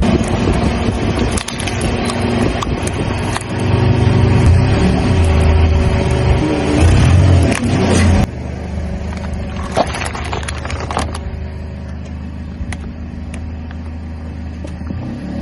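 Car engine running with a loud, uneven rumble, which drops off suddenly about eight seconds in to a steadier, quieter hum. A few sharp cracks follow as objects crunch under the car's tyre.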